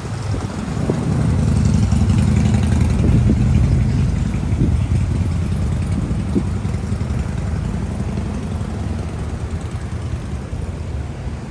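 A motor engine running close by, a steady low hum that builds over the first two seconds and then slowly fades.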